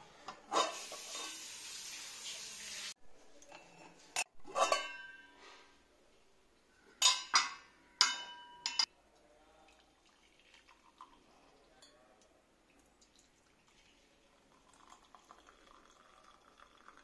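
Crockery and cutlery clinking: a couple of seconds of steady hiss near the start, then a few ringing clinks around four to five seconds in and again around seven to nine seconds in.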